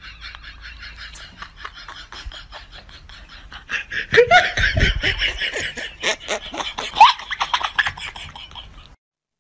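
A person laughing in quick repeated bursts, getting louder with a few high squeals from about four seconds in, and cutting off just before the end.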